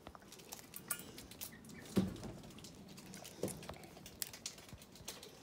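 Muscovy duck egg being cracked and picked open against a metal bowl: light clicks of eggshell, with two sharper knocks about two seconds in and again about a second and a half later.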